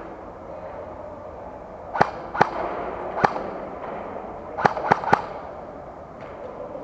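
Airsoft guns firing six sharp single shots: three spread over a little more than a second, then, after a pause, three more in quick succession.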